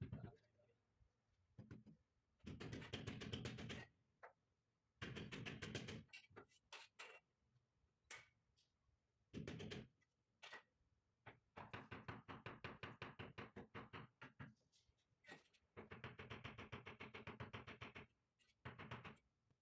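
Runs of rapid knocking, about six taps a second, on a white marble stair tread as it is tapped down to bed it level in the mortar. The runs last a second or two and are separated by short pauses.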